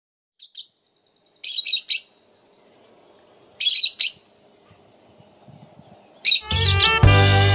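Rosy-faced lovebirds giving high-pitched chirping calls: one brief call, then three short bursts of chatter, each about half a second long, with quiet between. Saxophone music comes back in near the end.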